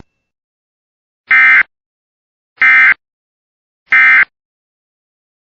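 Emergency Alert System end-of-message data bursts: three short, identical buzzy digital chirps about 1.3 seconds apart, signalling the end of the tornado warning broadcast.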